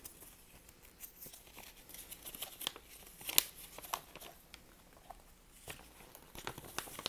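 Folded paper instruction leaflet being unfolded and flipped over by hand: faint, scattered crisp rustles and crinkles of paper.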